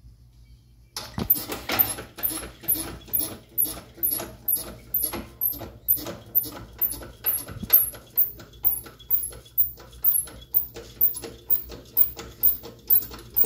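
Hydraulic shop press being worked by its hand pump, pressing a new rear axle stub into the backing plate. It starts about a second in as a steady rhythm of about two strokes a second, each stroke with a short high squeak.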